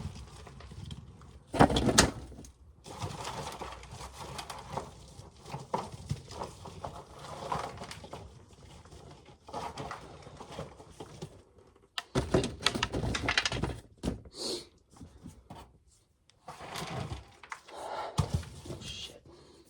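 Dried ear corn being shelled: irregular rattling, scraping and knocking of ears and kernels, with louder clattering about two seconds in and again from about twelve to fourteen seconds in.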